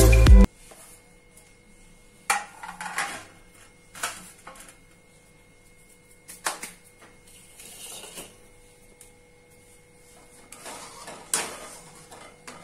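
Metal ladle scraping and clinking against a metal kadhai as halwa is stirred, in separate short strokes every second or two. Background music cuts off about half a second in.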